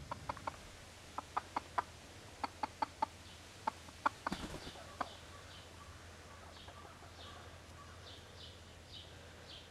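Chicken clucking in quick runs of three or four short clucks through the first half, ending with a few single clucks; after that, only faint, high, short chirps.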